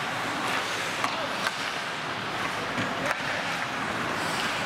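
Ice hockey play: a steady wash of skates scraping and carving the ice, with a few sharp knocks of sticks on the puck.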